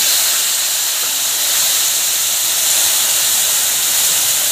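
Wet blended chili paste frying in hot oil in a wok: a loud, steady sizzling hiss.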